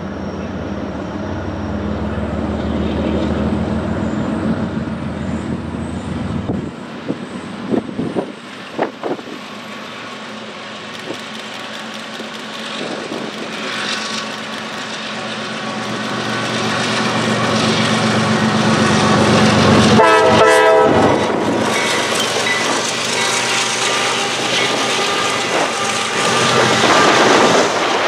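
A CSX diesel freight train passes at close range: the locomotives run by, then a long string of freight cars rolls past, steel wheels running over the rails. The sound grows louder in the second half.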